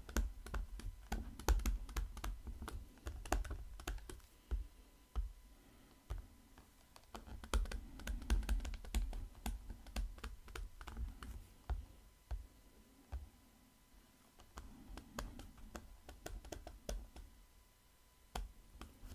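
Stylus writing on a tablet screen: irregular light clicks and taps from the pen tip, with dull knocks, quieter for a stretch after the middle.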